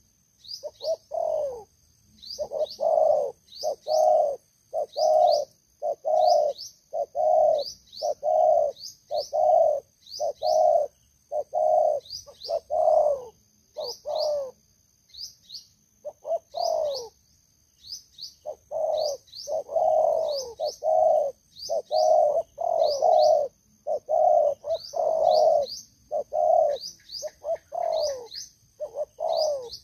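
Spotted doves cooing: a long run of low coos, one to two a second, with two short breaks about halfway through. Thin, high chirps repeat throughout behind them.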